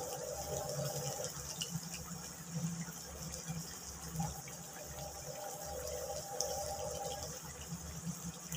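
Okra curry simmering in a wok on a gas stove: a steady bubbling hiss.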